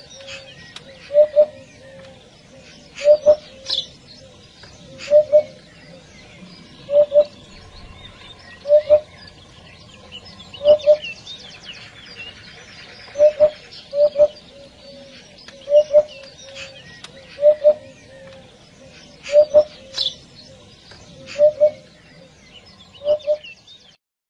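Hoopoe calling, a low double 'oop-oop' repeated over and over, about one pair every two seconds. Small birds chirp faintly and higher in the background.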